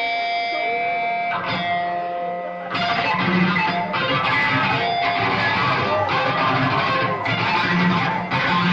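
Live heavy rock band: an electric guitar holds ringing notes, then about three seconds in the full band comes in with heavy guitar, bass and drums, playing in chopped stabs about once a second.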